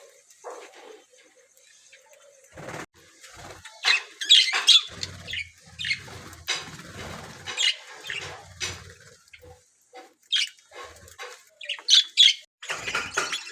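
A flock of budgerigars chirping and chattering in short, sharp, irregular calls. The calls are sparse at first and come thick and loud from about four seconds in, with a few low thumps among them.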